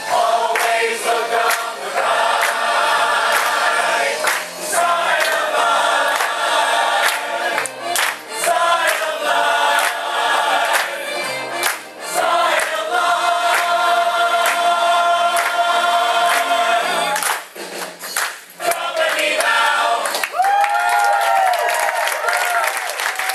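A stage-musical cast singing together in chorus with musical accompaniment and a steady beat. The song ends about twenty seconds in, and audience applause and cheering break out.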